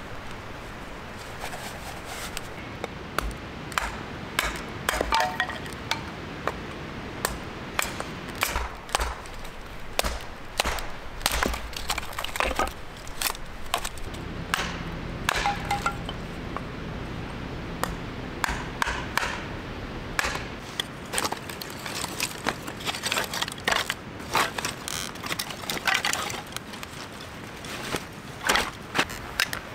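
Hatchet splitting firewood into kindling on a wooden chopping block: repeated sharp chops and knocks at an uneven pace, with wood cracking apart. A brief ringing ping sounds twice, about five seconds in and again midway.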